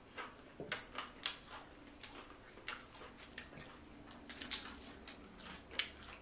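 Boiled, sauce-coated shrimp being peeled by hand: shells cracking and squishing in irregular sharp, wet clicks.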